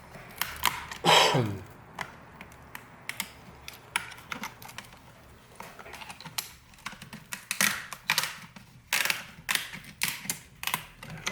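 Plastic display trim of an MSI GS65 laptop clicking and snapping as it is pried away from the panel, with its clips releasing one after another. About a second in, one louder short sound falls in pitch.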